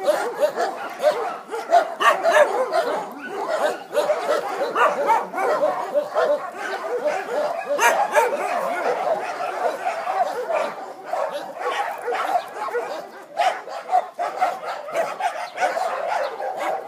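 Many dogs barking at once: a dense, unbroken chorus of overlapping barks and yips.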